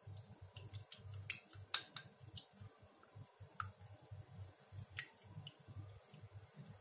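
Scattered sharp clicks and light taps at an irregular pace, thickest in the first couple of seconds, over a low fluttering rumble.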